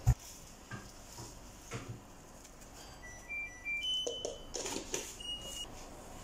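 A loud dull thump right at the start, then soft knocks and taps as red chilli flakes are added to a plastic mixing bowl of flour. In the middle come a few short, high, chime-like notes.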